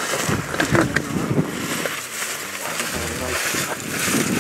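Footsteps through snow-covered dry grass and weeds, with clothing rustling and wind on the microphone.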